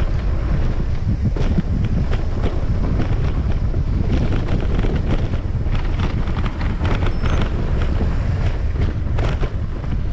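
Wind buffeting the microphone and tyre rumble from a mountain bike descending a dirt singletrack, with frequent short rattles and knocks from the bike over the bumps.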